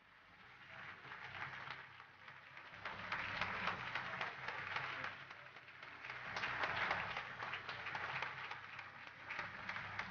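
Audience applauding, building up over the first couple of seconds and then rising and easing in swells.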